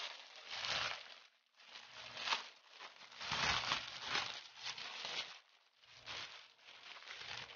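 Thin clear plastic wrapping crinkling and rustling as hands pull it off a wrist-rest mouse pad, in several spells with short pauses between them.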